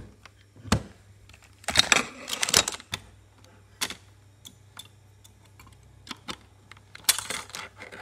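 Spacebar keycap being pulled off an RK84 mechanical keyboard with a keycap puller: a sharp click just under a second in, a clattery scraping stretch around two seconds, scattered light clicks, and another short clatter near the end.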